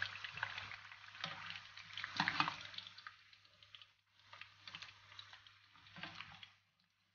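Sweet potato fries sizzling and crackling in hot frying oil as a utensil scrapes and lifts them out of the pan, with a steady low hum underneath. The sizzling drops out briefly about four seconds in, then comes back and dies away near the end.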